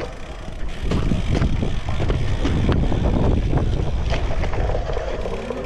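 Wind buffeting the microphone over the rattle and knocking of a cyclocross bike's tyres and frame on rough, bumpy dirt as it descends at speed, getting louder about a second in.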